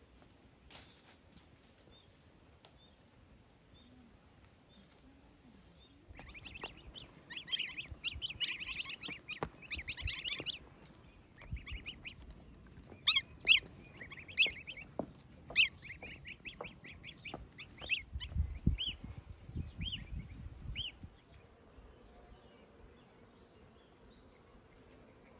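Goslings peeping. A dense flurry of short, high calls begins about six seconds in, then separate peeps follow and die away after about twenty seconds. A low rumble comes in under the last of the calls.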